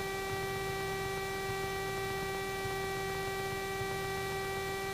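Steady electrical hum with a whine of evenly spaced overtones on the Cessna 172's intercom audio, with the engine idling faintly underneath.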